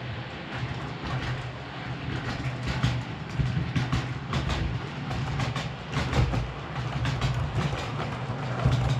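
00 gauge model train, an LNER Azuma, running on the layout: a steady electric-motor hum with wheels clicking over the rail joints, the clicks coming thicker as the train draws near and passes near the end.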